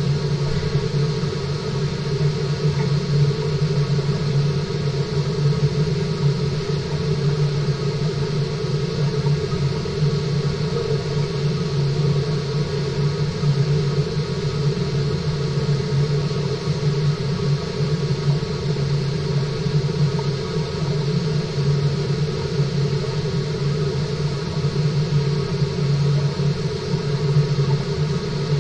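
Steady mechanical hum and low rumble with a hiss over it, from the water circulation and pumping of a fish-farm tank, picked up by an underwater webcam. It stays unchanged throughout, with no separate events.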